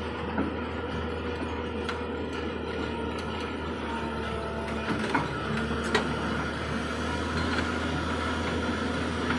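Tata Hitachi excavator's diesel engine running steadily, with a few sharp metallic clanks about two seconds in and again around five to six seconds in.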